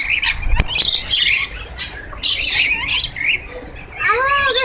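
A flock of nectar-feeding lorikeets screeching and squawking in many short, sharp calls.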